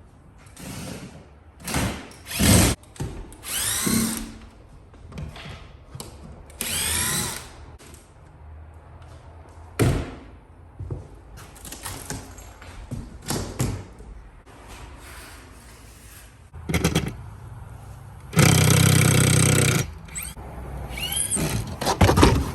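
Power drill running in a series of short bursts, its pitch rising as it spins up, with a few knocks between, and one longer steady run near the end.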